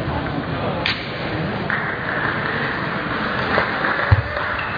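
Table tennis hall ambience between points: one sharp click about a second in, then a steady hiss of background noise from about two seconds, and a low thud near the end.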